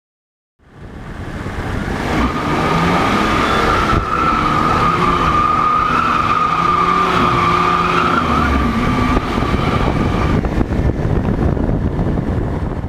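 Supermoto motorcycle engine running, a steady whining tone over a rough noisy roar that fades in about half a second in and holds steady.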